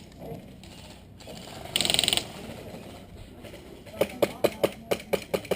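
A short, dense burst of airsoft gun fire about two seconds in, a half-second rattle of rapid shots. From about four seconds, a fast, even series of sharp clicks, about five a second.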